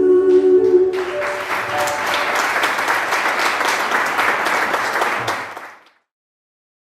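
Music stops and an audience claps, a dense steady applause that lasts about four seconds and then fades out to silence.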